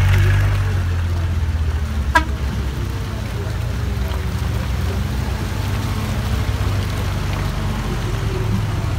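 Off-road vehicle engine running at low revs, a steady low drone, with one short, sharp chirp falling in pitch about two seconds in.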